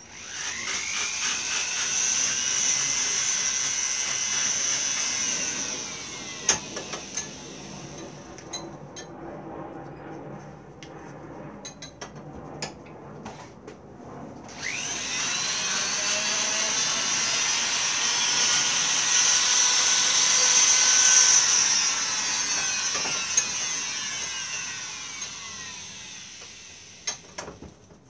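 Small handheld rotary power tool taking the square edges off a carved wooden thumbstick head. It spins up with a rising whine, runs about six seconds and winds down; after a pause with a few taps it starts again about halfway through and runs until near the end, slowly winding down.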